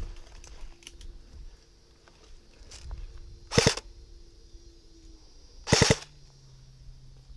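Two short bursts of airsoft gun fire about two seconds apart, each a quick rattle of a few shots.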